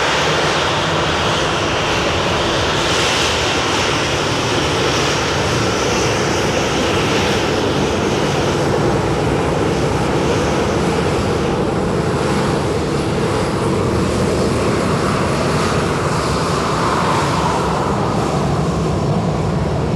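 Boeing 737-800 airliner's CFM56 turbofan engines running, a loud, steady rush of jet engine noise with a slow shift in its tone in the second half.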